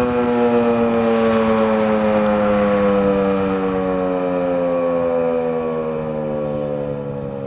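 Federal Signal 2001-SRNB outdoor warning siren winding down, its tone sliding slowly lower in pitch and fading.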